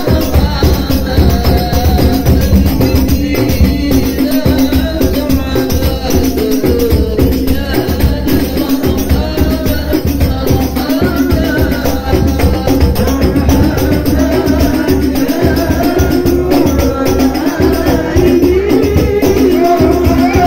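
Hadrah ensemble of rebana frame drums and a jingled frame drum playing a steady beat, with voices singing a sholawat over it.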